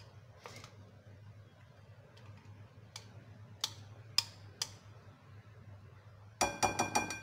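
A spatula and grinder jar clicking against a glass mixing bowl as cake batter is scraped out: a few scattered light clicks, then near the end a quick run of about five ringing taps.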